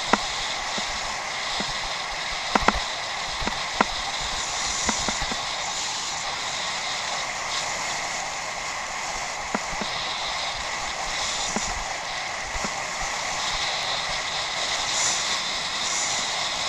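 Steady rushing noise of a bicycle being ridden over rough off-road ground, with a few sharp knocks as the bike jolts over bumps, a pair close together a few seconds in.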